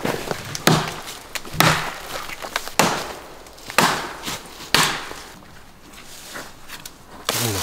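Wood being chopped by hand: five sharp blows, each about a second apart, then the chopping stops about five seconds in, leaving a few faint knocks.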